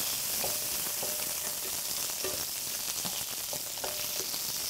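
Asparagus spears sizzling in oil and garlic in a frying pan while being tossed with metal tongs, with a few light taps of the tongs against the pan.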